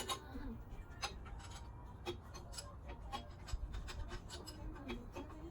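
Hand tools working bolts on a Cummins diesel engine: scattered short metallic clicks and taps of a ratchet and wrench.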